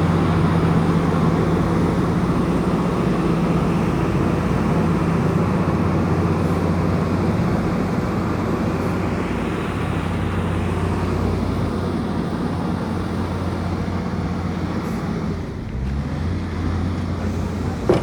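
Komatsu bulldozer's diesel engine running steadily with a low drone, dipping briefly in level about fifteen seconds in and then carrying on.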